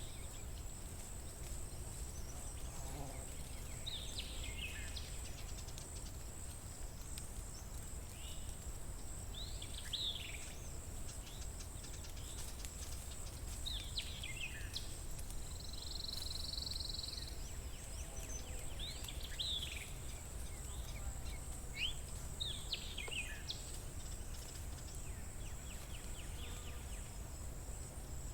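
Songbirds singing outdoors in spring, short falling whistled phrases every few seconds, over a steady high-pitched hiss and a low rumble of background noise.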